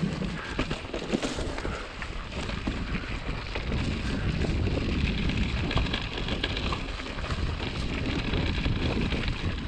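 Mountain bike rolling fast down a dirt singletrack: wind rumbling on the action camera's microphone, tyres on the dirt and scattered light knocks and rattles from the bike. The wind rumble grows louder about halfway through.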